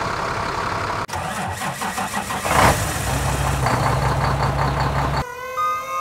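Vehicle engine sound effect: about a second in an engine cranks and starts, then settles into a steady low idle. Near the end it cuts off abruptly and music with long held notes begins.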